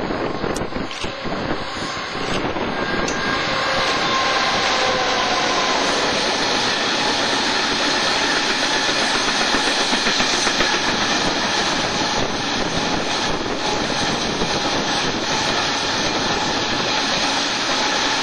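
Class 66 diesel-electric freight locomotive passing, followed by a long rake of loaded engineering wagons rumbling steadily over the rails. A few sharp clicks in the first seconds, then an unbroken loud rumble as the wagons go by.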